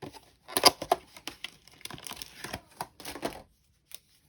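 Small plastic glitter glue bottles being handled on a craft table: a quick series of clicks, knocks and light rustling that stops about three and a half seconds in.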